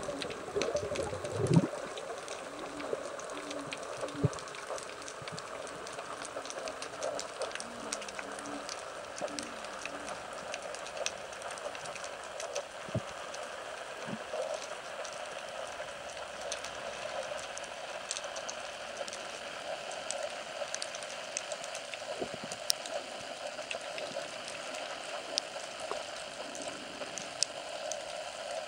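Underwater sea ambience picked up by a camera on a speargun during a glide over a rocky bottom: a steady watery hiss with scattered sharp clicks and crackles throughout. It is louder in the first second or so, then settles.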